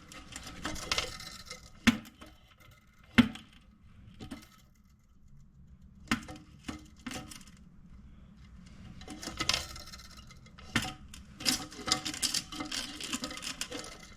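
Scattered sharp clicks and light metallic clinks and rattles of a toilet flapper chain and its clip being handled and hooked onto the flush handle lever inside the tank, busiest near the end.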